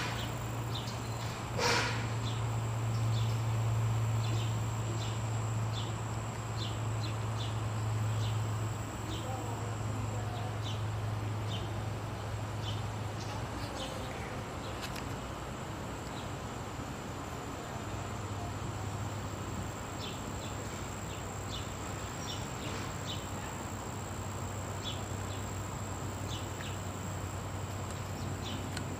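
Distant drone of a high-flying Fairchild C-26E Metroliner III turboprop, a steady low hum that fades for a few seconds mid-way and then comes back. Insects chirp over it, with short repeated chirps and a steady high-pitched buzz.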